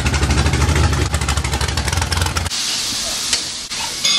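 Off-road race car's engine running with a choppy, pulsing note as it rolls in, then switched off about two and a half seconds in, leaving a steady hiss.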